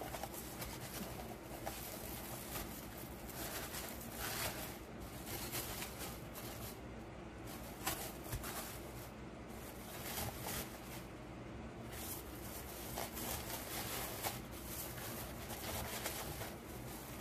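Irregular rustling and soft clicks of artificial pine garland being handled, as small light-up trees are pushed in among the branches, over a faint low hum.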